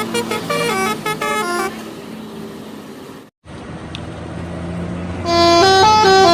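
Indonesian bus telolet horns playing quick stepping tunes, the notes changing several times a second. One tune stops about a second and a half in, leaving engine and road noise. A second, louder telolet tune starts near the end.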